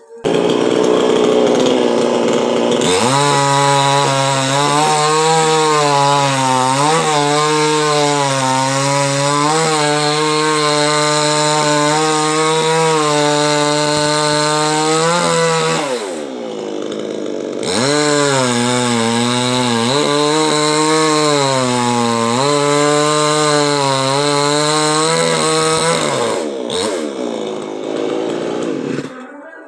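Two-stroke chainsaw running at high revs and cutting coconut palm wood, its pitch dipping now and then under load. It drops back about 16 seconds in, revs up again, and dies away near the end.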